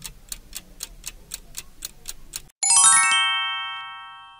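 Quiz countdown-timer sound effect ticking about four times a second, stopping about two and a half seconds in. A bright chime follows, a quick run of bell-like notes that rings and fades out, marking the time running out and the answer being revealed.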